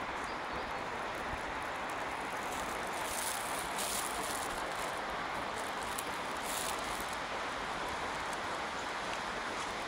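Steady hum of distant city traffic, with a few brief hissy rustles in the middle.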